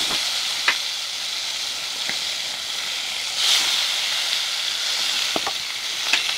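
Marinated chicken leg pieces frying in hot oil in a pan, a steady sizzle that flares up about three and a half seconds in as another piece goes in, with a few light clicks.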